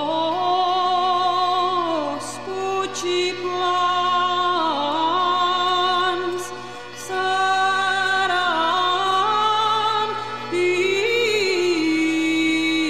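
Slow, mournful melody of long held notes with vibrato, gliding from one note to the next.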